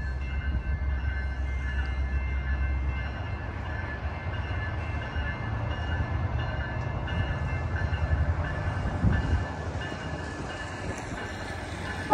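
Low, steady rumble of an approaching Amtrak train, led by a Siemens Charger diesel locomotive, still at a distance. A steady high-pitched ringing runs over it.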